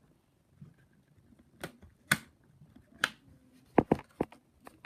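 Scattered sharp clicks and taps from handling a laptop's plastic case parts and screws while it is being taken apart, about seven in all, coming closer together in the second half.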